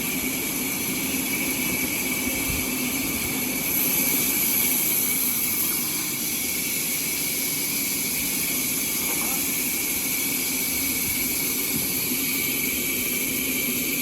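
Sawmill saw machinery running steadily, a constant hiss with a steady high whine, growing a little louder about four seconds in for a couple of seconds.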